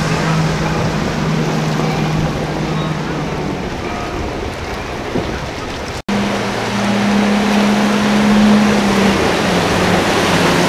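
Outboard motors of center-console fishing boats running at speed, a steady engine tone over wind and rushing water. The sound breaks off for an instant about six seconds in, then another boat's engines come in and grow louder toward the end.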